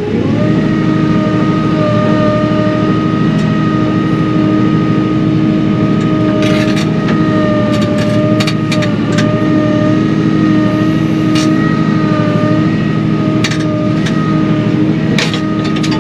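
An engine running steadily at a constant speed, with a few sharp snaps of branches breaking.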